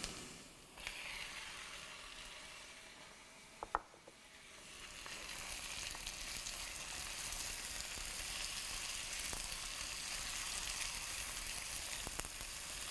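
Diced onion frying in oil and butter in a pan, then beef stew meat cubes added and stirred with a silicone spatula: a steady sizzle that grows louder from about five seconds in, after a short knock just before.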